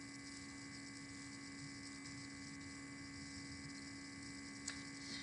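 Faint steady electrical hum with a low hiss, and a single small tick near the end.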